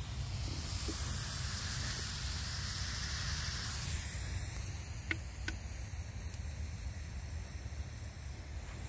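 Sausages in beer sizzling and hissing with steam in a pan over an Esbit pocket stove. About four seconds in the hiss drops away, and two sharp pops follow about a second later.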